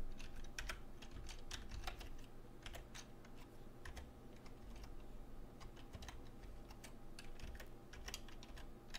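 Computer keyboard typing: a run of irregular, fairly quiet keystroke clicks as lines of code are entered.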